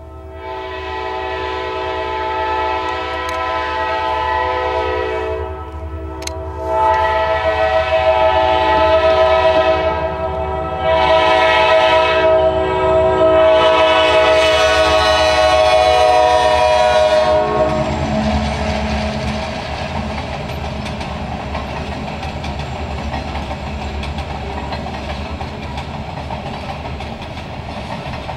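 Freight locomotive horn sounding for a grade crossing: two long blasts, a short one and a final long blast. Then the horn stops and the train's cars rumble and clatter steadily past the crossing.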